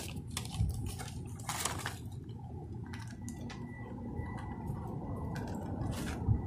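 Rustling of plastic wrapping and handling knocks as a solar floodlight and its panel are carried, over a steady low outdoor rumble. A faint, thin, steady high tone comes in about three seconds in.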